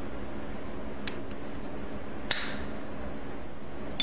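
Steel locking pliers working on a square steel tube: three sharp metallic clicks as the jaws are locked and released. The loudest comes about two seconds in and rings briefly, all over a steady low hum.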